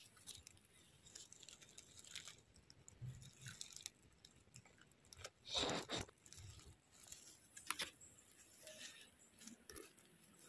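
Faint rustling and crunching of fallen leaves on the forest floor as a porcini mushroom is handled and picked, with one louder crunch about five and a half seconds in and a few sharp clicks near eight seconds.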